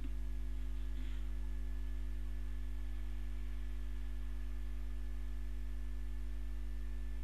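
Steady electrical mains hum: a low buzz with several steady tones above it, and no speech.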